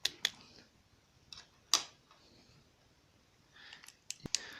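Small metal-on-metal clicks and taps as a screwdriver works the retaining pin out of a GP-25 grenade launcher's trigger housing: two sharp clicks at the start, a louder one just under two seconds in, and a quick cluster of clicks with brief scraping near the end.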